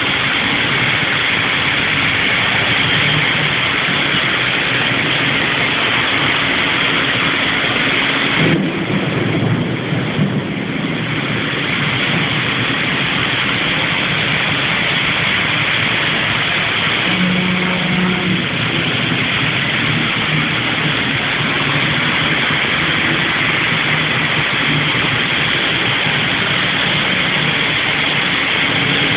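Heavy rain pouring down steadily as a dense, even hiss. About eight seconds in, a sudden low rumble breaks in for a couple of seconds.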